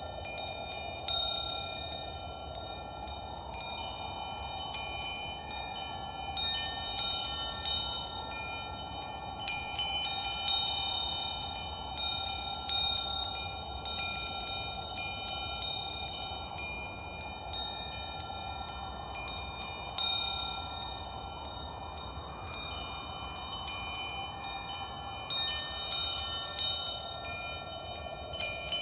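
Wind chimes ringing, struck at irregular moments so that their high ringing tones overlap, over a steady rushing noise; a few strikes stand out louder.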